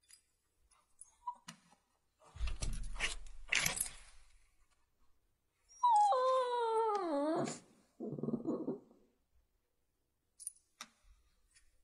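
A dog whining: one long cry of about two seconds that slides down in pitch, followed by a short, low, rough sound. Before it come a few clicks and a noisy rustle.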